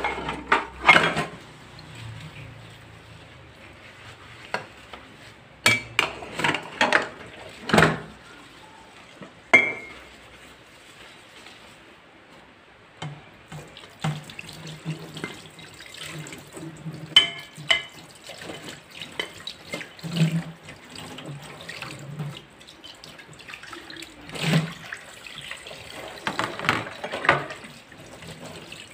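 Dishes being washed by hand in a stainless steel sink: ceramic plates and glasses clink and knock against each other and the basin. From about halfway through, the tap runs as the plates are rinsed.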